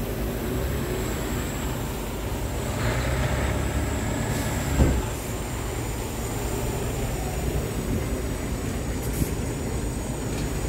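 Scania R truck's diesel engine idling steadily, a low rumble, with a single short thump about halfway through.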